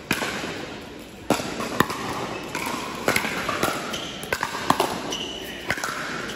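Pickleball rally: paddles striking a hard plastic ball, a series of sharp pops a second or so apart, ringing in a large hall.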